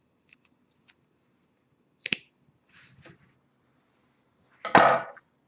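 Scissors snipping through a yarn tail: one sharp click about two seconds in, with a few faint clicks before it. Near the end there is a louder, brief knock and rustle.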